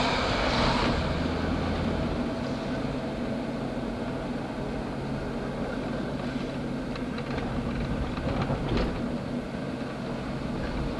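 A PCC streetcar running along street track, heard on board: a steady low rumble and hum. There is one sharp click about nine seconds in.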